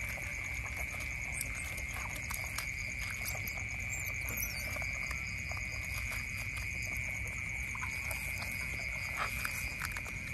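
Otters chewing and crunching fish, heard as scattered short clicks and smacks, over a steady high-pitched drone.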